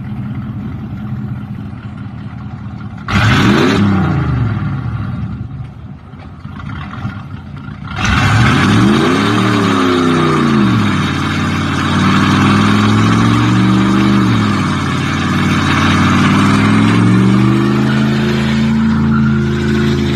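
Car engine running, revved hard about three seconds in and again about eight seconds in, then held at raised revs with the pitch rising and falling.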